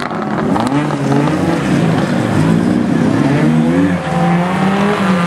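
Race car engines revving hard, rising and falling in pitch through gear changes and throttle lifts, with more than one engine heard at once.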